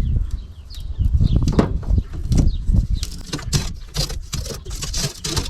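Old window screen mesh being handled and pulled apart by hand: scattered crackling and rustling that grows dense about halfway through, with a low rumble underneath.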